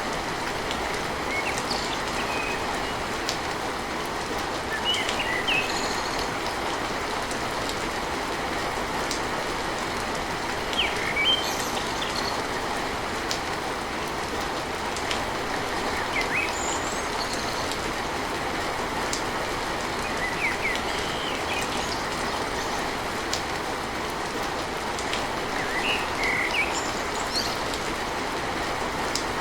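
Steady rain drumming on a tin roof, an even hiss with no break, with a few short high bird chirps every few seconds.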